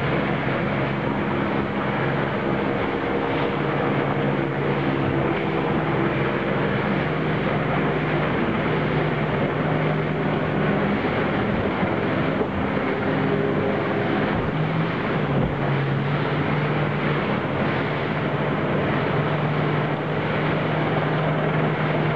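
Motorboat engine running with a steady droning hum that shifts pitch slightly partway through, under a constant rush of wind and water.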